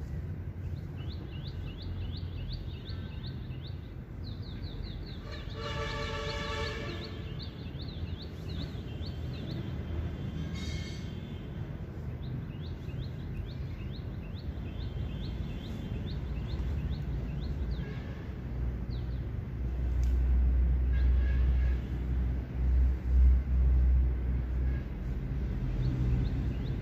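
Rural outdoor ambience. Rapid high chirping calls repeat through the first two-thirds, a distant horn sounds once for about a second and a half about six seconds in, and a low rumble is loudest about twenty seconds in.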